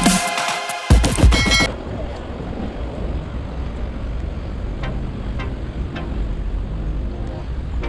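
Electronic intro music cuts off about two seconds in, giving way to steady wind buffeting the microphone over outdoor city ambience, with a few faint ticks in the middle.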